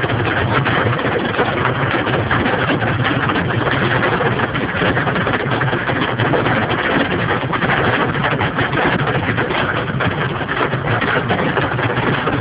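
Heavy rain drumming hard and steadily on the roof and body of a car, heard from inside the cabin as a dense patter of countless impacts.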